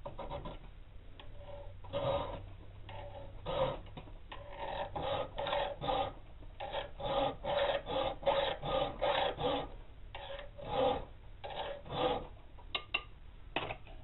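Round file rasping by hand across the steel spine of a balisong knife blade held in a vise, cutting rope-pattern filework notches. It comes as a series of separate strokes, about two a second through the middle, with a few sharp clicks near the end.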